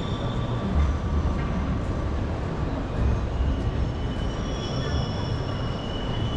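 Busy city street with people talking over a steady low traffic rumble, as a light rail tram draws near; from about three seconds in its wheels give high, thin squeals.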